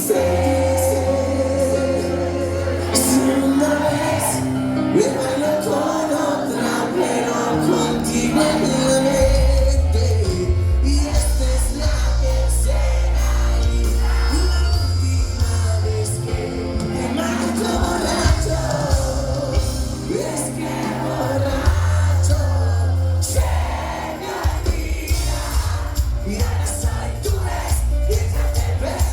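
Live band music with a lead singer over a steady bass line and percussion.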